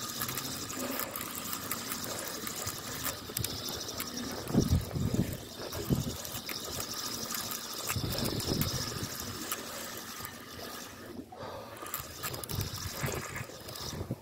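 Sea water sloshing and lapping among the concrete tetrapods of a breakwater, with a few low gusts of wind buffeting the microphone about a third and two-thirds of the way through.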